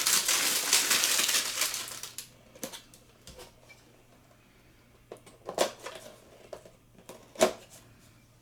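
Plastic booster packaging crinkling and crackling for about two seconds, then a few sharp clicks and taps as the plastic figures and packs are handled.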